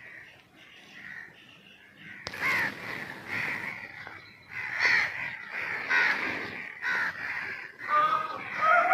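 A flock of crows cawing, with many calls overlapping. The calls are faint at first and become much louder and denser from about two seconds in.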